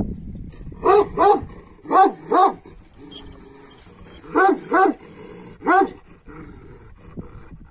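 Large Kangal-type shepherd dog barking during rough play with another dog: seven short, loud barks, mostly in quick pairs.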